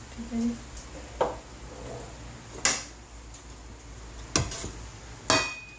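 Kitchenware knocking sharply against a cooking pot four times, a second or so apart, with soft sounds of boiled rice being turned over by a flat utensil in between.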